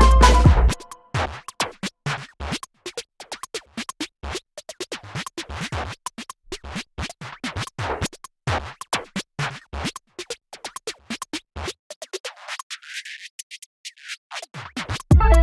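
Background music cuts off under a second in, followed by a long run of irregular sharp clicks and rattles: metal keychain clips and split rings being snapped together, pressed open and handled.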